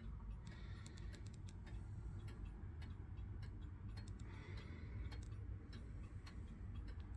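Antique Winterhalder & Hofmeier fusee drop-dial wall clock ticking steadily, its pendulum movement running.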